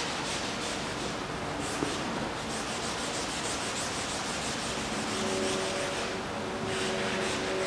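A gloved hand rubbing back and forth over a painted canvas in quick scrubbing strokes, a dry scratching sound. Faint steady low tones join in about five seconds in.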